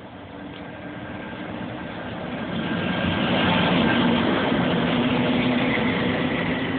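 MÁV V63 'Gigant' electric locomotive departing with a passenger train, humming with a few steady tones over wheel noise. It grows louder as it passes close by about four seconds in, then the coaches roll past.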